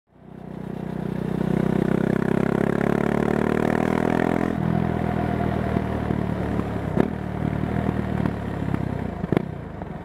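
Husqvarna Svartpilen 401's single-cylinder engine through an Arrow Pro Race aftermarket exhaust, its note climbing steadily for about four seconds as it accelerates. The note then drops abruptly and runs lower, with two sharp cracks near the end.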